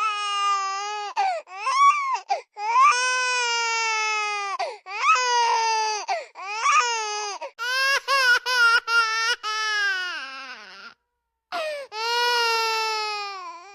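Baby crying sound effect: a run of long, high-pitched wails broken by short catches of breath, with a brief pause about eleven seconds in before the crying starts again.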